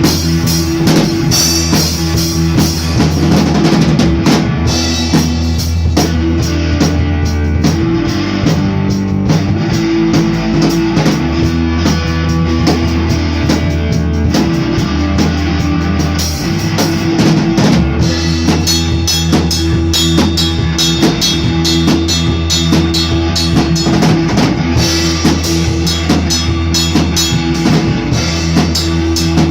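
A band jamming a rock song: a drum kit keeping a steady beat with bass drum and cymbals under bass and guitar.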